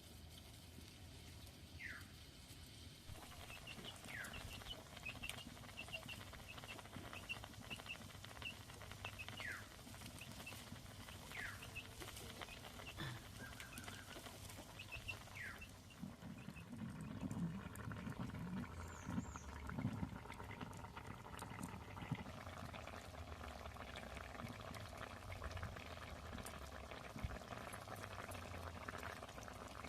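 Faint outdoor ambience: a bird gives short falling chirps every couple of seconds, over a run of small high ticks. Some low knocks and rustles come up in the middle.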